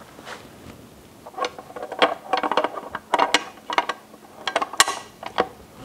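Steel drive shaft of a Yamaha F225 outboard being worked down into the lower-unit gearcase onto the pinion gear: irregular metal-on-metal clicks and clinks in quick clusters, the sharpest near the end.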